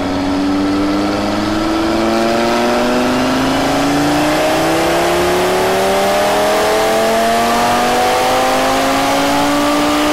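Audi TT RS's turbocharged 2.5-litre inline five-cylinder engine with a Milltek Sport exhaust, at full throttle in a chassis-dyno pull. Its exhaust note rises steadily in pitch as the revs climb.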